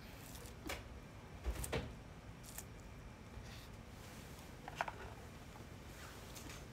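Chewing a mouthful of crisp leafy greens: a few short, crisp crunches and mouth clicks, spaced irregularly.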